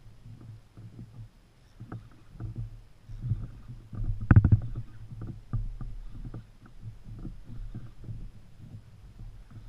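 Water sloshing against a kayak hull, with irregular knocks and clicks from handling the rod and reel while fighting a hooked fish. A sharp knock stands out about four seconds in.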